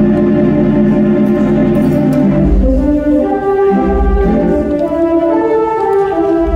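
Wurlitzer theatre pipe organ being played: a held chord for the first couple of seconds, then a melody moving over deep pedal bass notes that sound at intervals.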